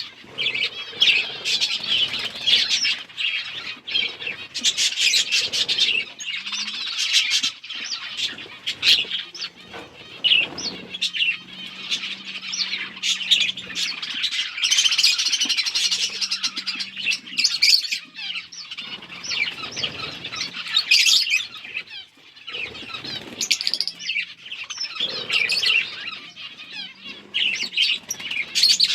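A flock of budgerigars chirping and chattering continuously, many birds at once, with occasional wing flutters.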